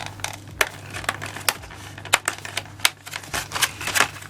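Trading-card packaging being handled: a run of irregular sharp clicks and crinkling, over a faint low hum.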